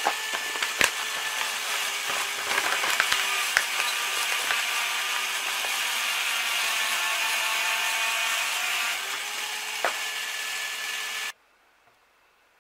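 Electric drill running steadily with a bullet-shaped piece spinning in its chuck and rubbing against a flat pad, giving a motor whine over a hiss, with a few sharp clicks. The sound cuts off abruptly near the end.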